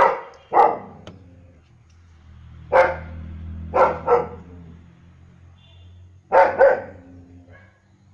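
German shepherd barking seven times, mostly in quick pairs with pauses of a second or two between: two barks, one, two, then two.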